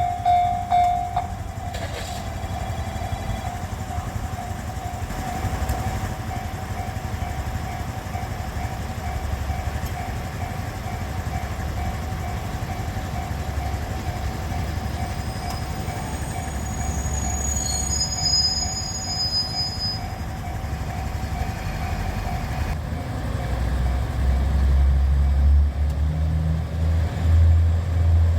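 Japanese level-crossing alarm ringing in a steady repeated ding while a JR KiHa 47 diesel railcar rumbles past, with a brief high squeal partway through. The alarm stops near the end as the low diesel rumble grows louder.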